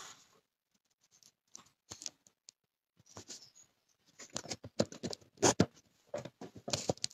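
A soft blown kiss at the start, then scattered taps, clicks and rustles from the recording device being handled up close, growing denser after about four seconds.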